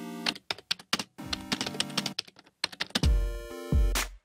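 Rapid keyboard-typing clicks, a sound effect for on-screen text being typed, over background music with held chords. About three seconds in the music hits twice, loud and bass-heavy, then cuts off suddenly.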